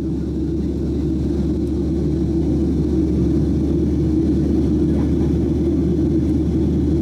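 Steady cabin noise of a Boeing 737-800 on approach, heard from a window seat by the wing: the low rumble of its CFM56 engines and the rush of airflow, growing a little louder over the first few seconds.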